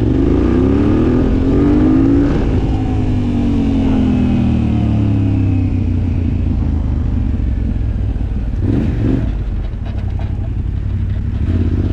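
Yamaha Raptor quad fitted with a Yamaha MT-07 parallel-twin engine, revving up for about two seconds and then easing off, the pitch falling slowly as it rolls along the road.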